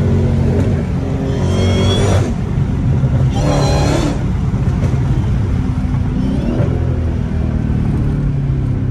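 Dodge Challenger Hellcat's supercharged 6.2-litre Hemi V8 running steadily under way, with two brief higher-pitched sounds about one and a half and three and a half seconds in.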